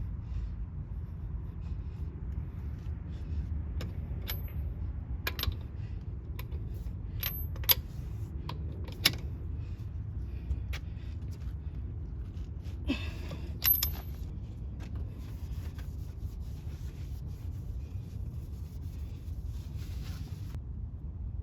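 Scattered sharp metallic clinks and taps of hand tools and hardware being handled, over a steady low rumble, with a short burst of clattering a little past the middle.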